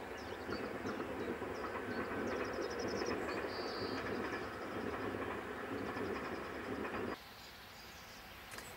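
Distant passenger train running across a stone viaduct: a steady rumble of wheels on rails. The rumble cuts off abruptly about seven seconds in, leaving quieter outdoor ambience.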